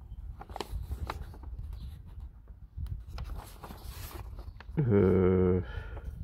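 Paper instruction sheet crinkling and rustling as it is handled and unfolded, with a man's short hummed "hmm" about five seconds in, the loudest sound here.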